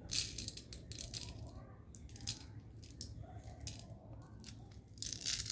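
Small plastic clicks and rattling as a spring airsoft TEC-9 replica is handled and loaded with BBs at the rear, with a cluster of louder clicks near the end.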